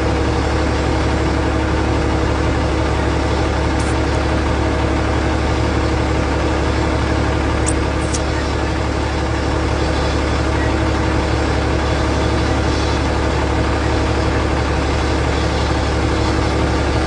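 Steady engine drone with a strong low hum, heard from inside a heavy vehicle's cab.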